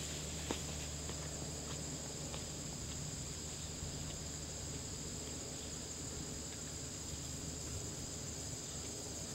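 Steady high-pitched chirring of field insects in the grass, with a few faint scattered taps, one sharper about half a second in.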